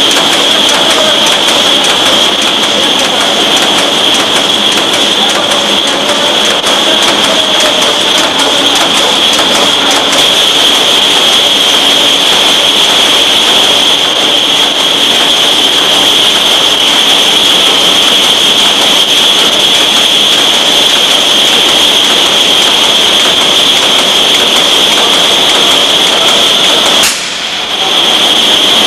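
Pilfer-proof cap making machinery running: a continuous dense mechanical clatter under a steady high-pitched whine, dropping away briefly near the end.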